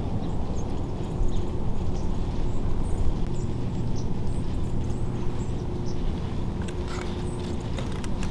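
Outdoor field ambience: a steady low rumble with a faint hum underneath, and short, faint, high bird chirps scattered through. A few brief crackles near the end.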